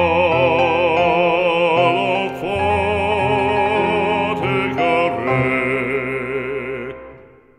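Background music: a voice holding long notes with vibrato, operatic in style, over orchestral backing, fading out near the end.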